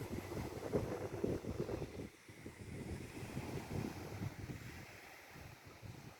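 Wind buffeting the microphone by the sea, with the wash of waves underneath. It gusts harder for the first two seconds, then eases.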